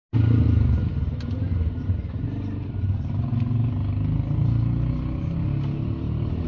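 Subaru flat-four engine running steadily, with a few sharp clicks over the low drone. The engine has a knock that the mechanics put down to worn piston rings rubbing the cylinder walls.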